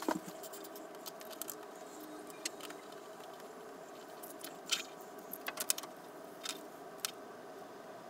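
Scattered light clicks and taps of small plastic and metal blaster parts being handled while a screw is driven in with a small screwdriver, over a faint steady hum.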